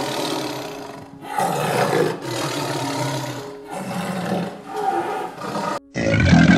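Big cat growling in a series of rough roars over background music. Near the end, after a short break, a louder and deeper growl starts.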